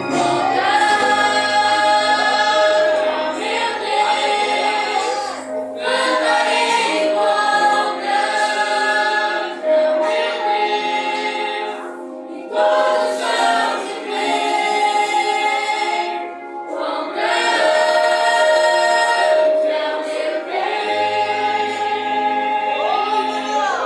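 A youth choir singing a Portuguese worship song in long held phrases, with brief pauses between lines.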